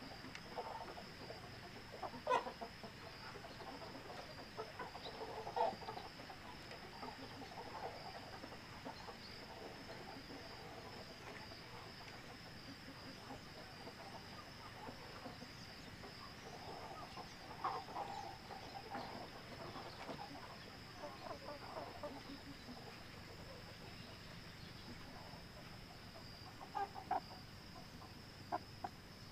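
A small flock of hens clucking softly and murmuring in short, scattered calls as they crowd through the coop door to roost, over a steady high chirring of crickets.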